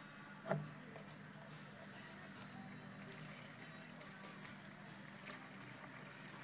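Gasoline trickling faintly from a plastic gas can into a lawn mower's fuel tank, with a light knock about half a second in.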